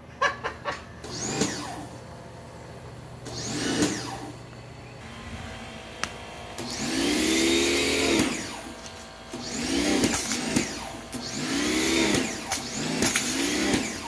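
The electric motor of a WAP New Eco Wash 2200 pressure washer starts and stops about five times as the gun trigger is squeezed and released, with water spraying through the pipe-unclogging hose. Each burst is a whine that rises and then falls, and the longest comes near the middle. A few sharp clicks come right at the start.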